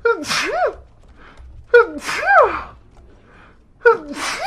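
Three high-pitched sneezes about two seconds apart, each a short voiced intake and then a sharp sneeze whose voice rises and falls in pitch.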